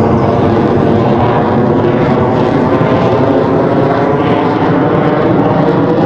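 F-22 Raptor's twin Pratt & Whitney F119 turbofan jet engines running loud and steady as the fighter flies overhead in a demonstration pass.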